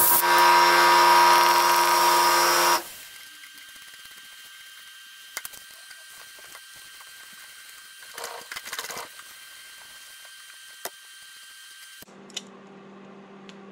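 A loud, steady whirring hiss with several held tones lasts about three seconds and cuts off suddenly. After it come only a few faint metallic clicks and a short rattle as a 5/8-inch hand tap is worked with a tap wrench in the end of the Wisconsin VH4D's crankshaft.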